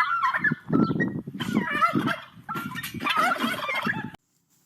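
A fowl gobbling in rapid, warbling, turkey-like calls, in a few bursts that stop abruptly about four seconds in.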